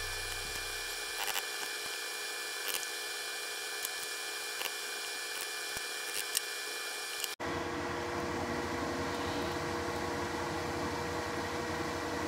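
A few light clicks of lasting pliers working leather over a shoe last, against steady room noise. A bass line fades out in the first second, and about seven seconds in the background switches abruptly to a steadier hum.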